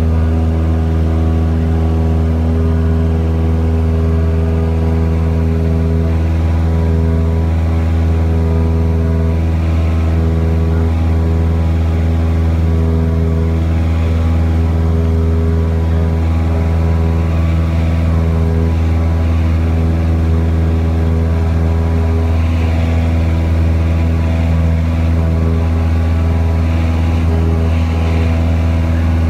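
Single-engine Cessna's piston engine and propeller running steadily at climb power after takeoff, heard as a loud, even drone inside the cabin.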